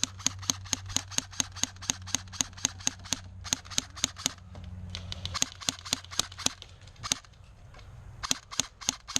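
Airsoft gun firing rapid single shots, about four or five sharp cracks a second. The strings break briefly about three seconds in and again after about five seconds, then a few slower shots follow and another quick string comes near the end.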